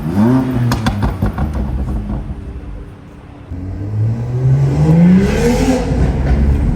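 Tuned BMW engine blipping up and back down, with a quick run of exhaust pops and crackles as the revs fall. A few seconds later it accelerates hard, the engine note climbing steadily for about two seconds before easing off near the end.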